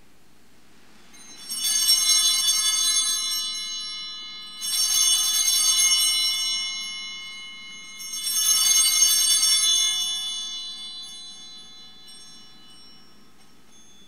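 Altar bells rung three times, each ring fading out over a few seconds, marking the elevation of the consecrated host at Mass.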